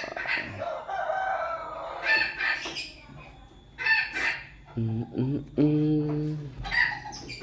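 Bantam chickens crowing and clucking in several short calls, with a man's low voice briefly just past the middle.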